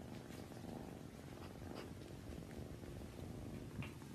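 Tabby kitten purring faintly and steadily, with a couple of soft clicks, about two seconds and four seconds in.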